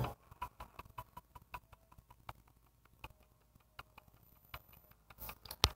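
Faint, irregular clicks and ticks, several a second, with a louder sharp click near the end.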